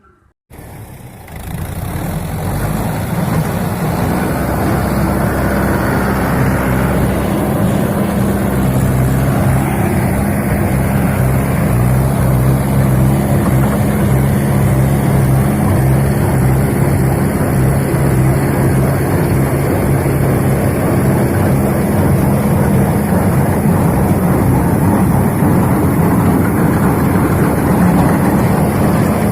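Tractor engine running steadily with a low hum, building up over the first couple of seconds and then holding an even pitch and level.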